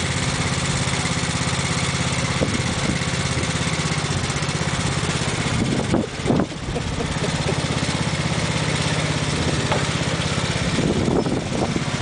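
Riding lawn mower engine running steadily while the mower drives across the lawn.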